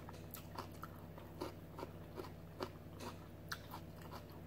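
A person chewing and crunching food, in faint, irregular crisp clicks, over a low steady hum.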